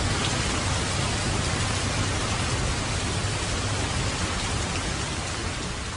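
Heavy rain falling steadily on water and trees, starting to fade out near the end.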